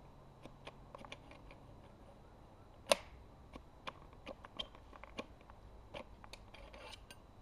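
A single sharp metallic click about three seconds in, with fainter clicks and taps around it, from the homemade shotgun's firing mechanism as it is worked on aim without a shot going off. This fits an old shell that fails to fire.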